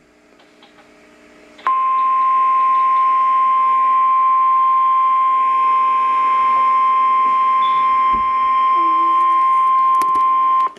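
Emergency alert attention tone of the kind NOAA Weather Radio sounds before a warning: a single steady high beep, about 1050 Hz. It starts abruptly about two seconds in and holds without a break for roughly nine seconds, signalling that a severe thunderstorm warning is about to be read.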